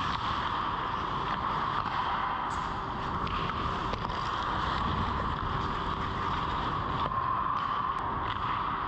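Indoor ice rink ambience during hockey play: a steady rushing noise with a constant hum under it, skates scraping the ice near the net, and a few sharp clicks.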